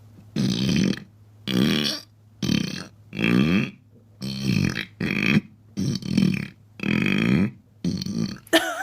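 A woman belching on purpose: a string of about ten loud burps in quick succession, each under a second long, with short pauses between them.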